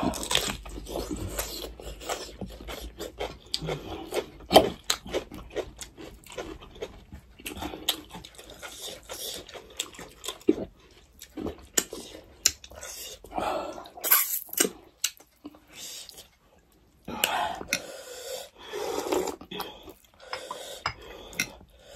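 Close-up mouth sounds of people eating: irregular chewing, lip smacks and crunches as raw red pepper is bitten and chewed with rice.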